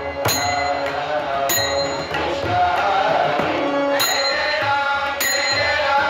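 Bhajan accompaniment with tabla and a bright ringing metallic strike on a steady beat about every second and a quarter, over sustained melodic tones.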